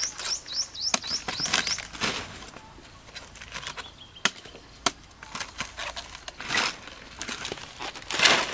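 Crisp cabbage heads and leaves crunching, rustling and snapping as they are handled in a woven bamboo basket, with scattered sharp cracks and a louder crunch near the end. A bird chirps a quick run of about seven rising notes near the start.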